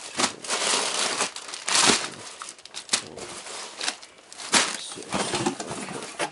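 Clear plastic poly bags of clothing crinkling as they are lifted out of a cardboard box and stacked, in a run of irregular rustling bursts, loudest about two seconds in and again past the middle.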